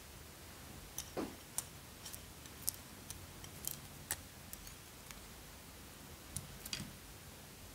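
Scattered soft clicks and taps as hands handle a small ceramic dish of clear jelly slime over a glass dish and add the slime to it, with no steady sound between them.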